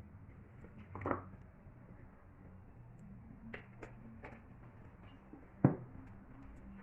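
A few scattered light knocks and taps over a faint low hum, with one sharp, much louder knock near the end.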